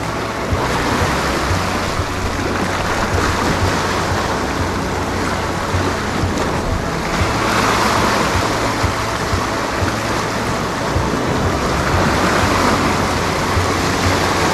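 Ocean swell washing over and draining off a rock ledge: a continuous rush of surf that surges louder about halfway through and again near the end.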